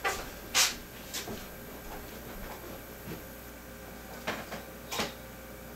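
A handful of short knocks and scrapes of objects being handled and moved, the loudest about half a second in and two more near the end.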